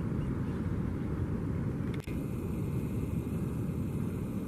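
Steady low rumbling noise, with a brief dropout about two seconds in.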